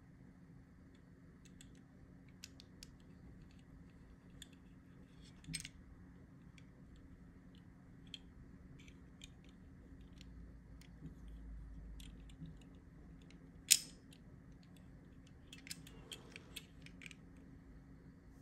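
Faint small clicks and ticks from fingers handling a 1:64 diecast model car with an opening hood and doors, with one sharp click about two-thirds of the way through and a smaller one near a third of the way in.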